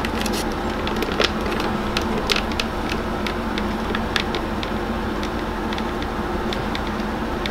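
Small, irregular plastic clicks and taps as the joints and hands of a Dragon Stars Broly action figure are handled and posed, over a steady background hum.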